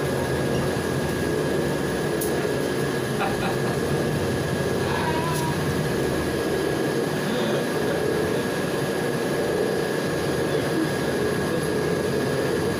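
Cabin noise of a Volgabus 5270G2 city bus running on liquefied natural gas, on the move: steady engine and road noise with a thin, steady high whine and a few faint clicks and rattles.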